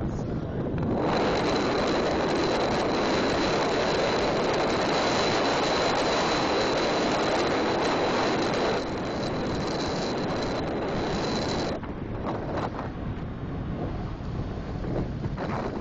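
Wind rushing over the microphone of a handlebar-mounted camera on a bicycle coasting fast down a steep grade. A thin, steady high whistle runs through most of it and stops about three-quarters of the way in, where the rush also eases a little.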